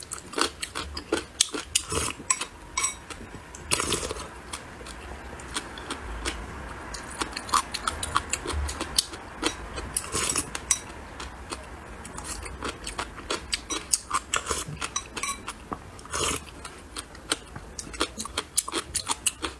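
Close-up crunchy chewing of Sichuan spicy dried radish: a steady run of sharp, crisp crunches. Around the middle, sips of rice porridge from a bowl.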